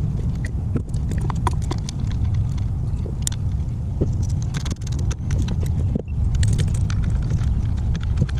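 BMW Mini Cooper engine running at idle: a steady low rumble with irregular ticks and knocks over it. The car has its check engine light on and is being checked for a misfire and rough idle.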